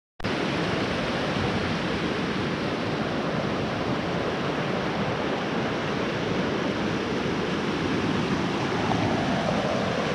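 A steady rushing noise with no engine tone, even in level throughout.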